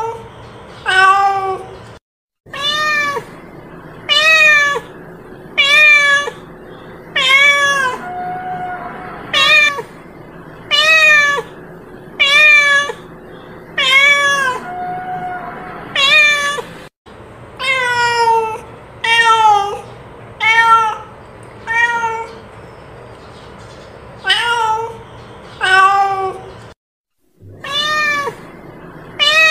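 A cat meowing over and over: short meows that rise and fall in pitch, one about every second and a half, with a couple of softer, longer, flatter calls in between.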